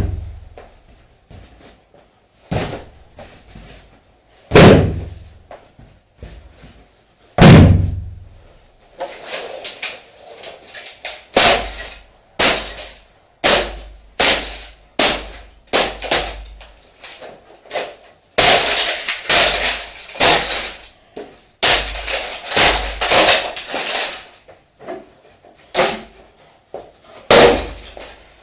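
A shoe stomping hard on objects underfoot: three heavy thumps first, then a fast run of stomps with sharp cracking and crunching as plastic and wood break.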